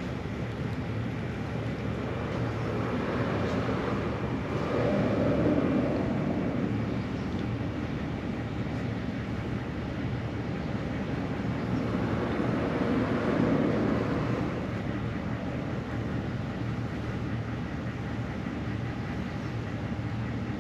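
Steady hum of traffic, with two vehicles passing: the noise swells and fades about four seconds in and again about twelve seconds in.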